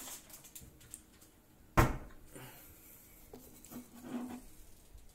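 A single sharp knock of a plate against a wooden tabletop, followed by a few soft clatters and scrapes as the plate of dry noodles is handled and picked up.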